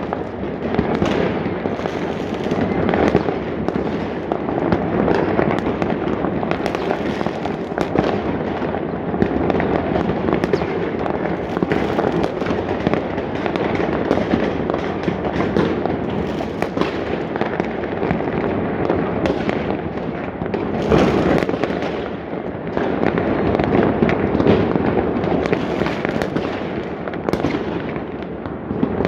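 Many fireworks and firecrackers going off at once: a dense, continuous crackle of overlapping bangs and pops with no real pause.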